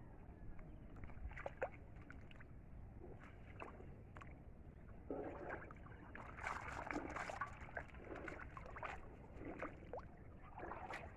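Shallow water sloshing and splashing in irregular bursts as a collapsible china duari ring-net fish trap is lifted and shaken in it, busiest around the middle.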